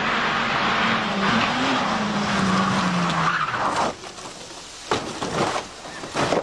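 A hatchback rally car's engine running hard with its tyres skidding as it slides, its engine note sagging slightly. After about four seconds the noise drops away and a few heavy knocks follow as the car rolls over onto its roof.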